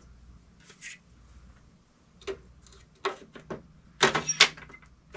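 Plastic clicks and knocks of the HP LaserJet 1022's paper input tray as a stack of paper is pushed in and the tray cover is put in place. The loudest is a quick run of knocks about four seconds in.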